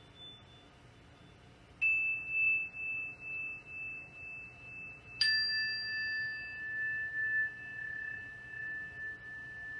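Two meditation bells struck in turn about three seconds apart, each ringing on with a clear pure tone that wavers as it fades; the second is lower in pitch.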